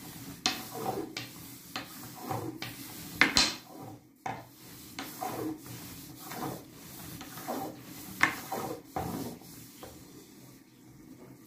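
Long, thin wooden rolling pin (oklava) rolled back and forth over a sheet of dough on a granite countertop: repeated rubbing strokes, about one or two a second, with a sharper knock about three seconds in and another about eight seconds in.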